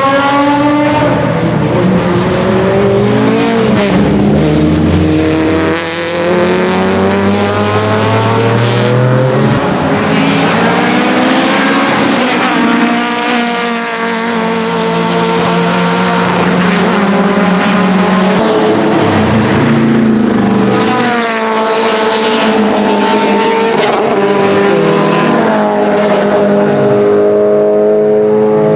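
BMW 2002 racecar's naturally aspirated four-cylinder engine run hard, loud throughout, its revs climbing and dropping again and again with the gear changes.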